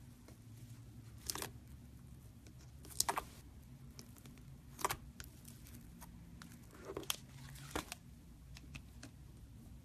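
Thick slime in a plastic tub being pressed and squeezed by fingers, giving short crackling pops about five times, with smaller clicks between.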